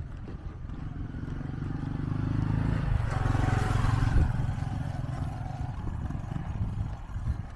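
A small motor engine passing close by. It grows louder to a peak about three to four seconds in, then fades away.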